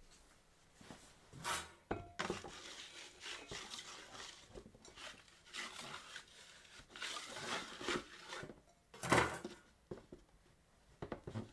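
Unfired clay plate being handled over a pottery wheel head: light knocks, scrapes and rubbing, with a louder bump about nine seconds in.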